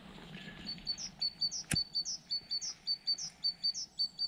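A small songbird singing a rapid, evenly repeated high phrase of short notes, each a flat note followed by an upward sweep, about five a second, starting about half a second in. A single sharp click cuts across it about two seconds in.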